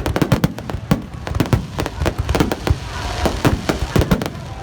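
Aerial fireworks going off in a dense, rapid barrage of bangs and cracks, several a second, with a stretch of crackling a little after halfway.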